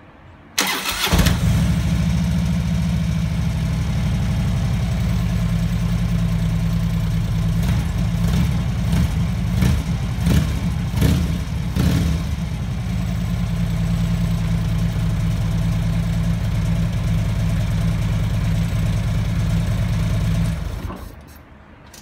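Harley-Davidson touring motorcycle's V-twin engine cranked and catching about half a second in, then idling steadily with a few brief surges in the middle, and shut off near the end. The freshly refitted exhaust sounds free of leaks.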